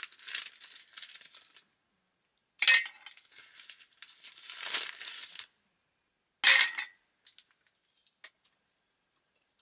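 Tableware clinking twice, about four seconds apart, each strike ringing briefly, with crinkling and rustling between them and a few faint ticks near the end.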